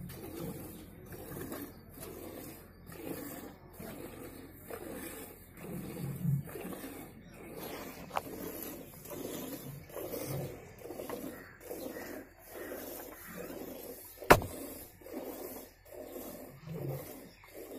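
A cow being milked by hand into a steel pail: rhythmic squirts of milk hissing into the froth, about two a second. One sharp click stands out late on.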